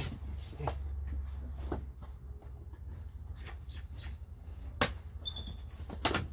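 Sharp knocks and clicks from handling pigeons in their shipping box, four of them spread out, with a short high bird chirp about three and a half seconds in, over a low steady rumble.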